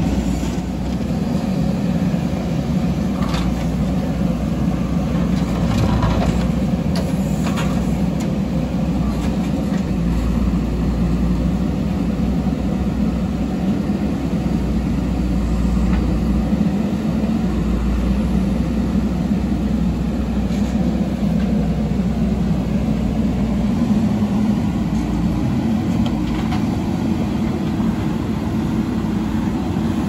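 Engine of a heavy earthmoving machine running steadily under work, with a few short sharp knocks now and then.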